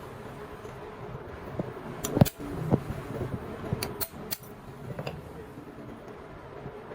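Sharp metallic clicks and clinks of hand tools being handled during engine work, a few at a time about two and four seconds in, over a steady hum.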